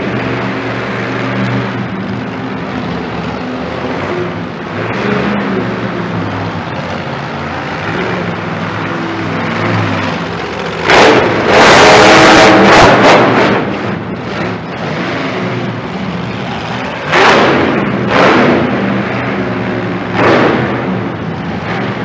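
Monster truck engine running, revved hard for about two seconds midway as the truck passes close by, then blipped in three short bursts near the end.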